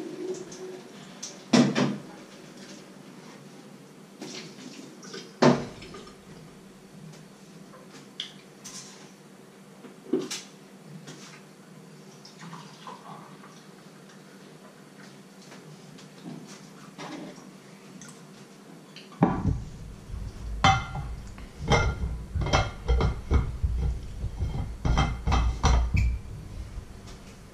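Kitchen clatter of a pan and crockery: a few separate sharp knocks, then, about two-thirds of the way through, several seconds of rapid clinks and rattles while a thermos flask is handled.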